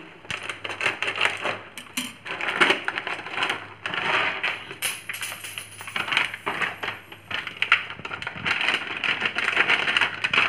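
Dry soya chunks poured from a packet into a pot of hot water to boil: a dense, irregular clatter of small crackles and ticks that comes and goes.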